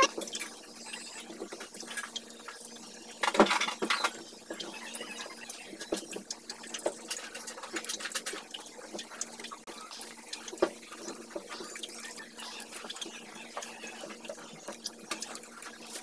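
Small clicks and rustles of wires and bullet connectors being handled and pushed together while wiring a motorcycle hazard light, with one louder click about three and a half seconds in, over a steady hum.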